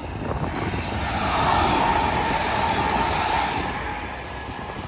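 Distant electric passenger train running along the line, its rolling noise and a steady whine swelling from about a second in and fading toward the end. Wind buffets the microphone throughout.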